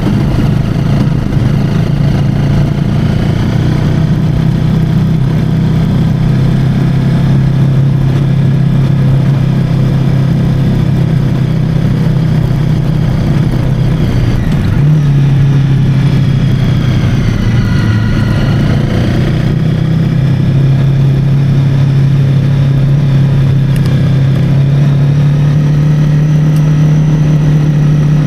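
Motorcycle engine running steadily while riding a dirt road, its pitch shifting slightly about halfway through and again near the end.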